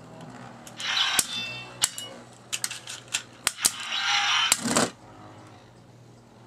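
Two Beyblade metal spinning tops clattering in a plastic stadium: many sharp clacks as they hit each other and the walls. There are two longer, louder noisy bursts, about a second in and around four seconds in.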